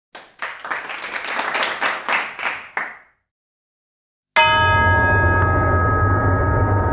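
A run of short, noisy, crackling bursts for about three seconds, then a pause. About four seconds in, a large bell is struck once and rings on with several steady tones over a low drone.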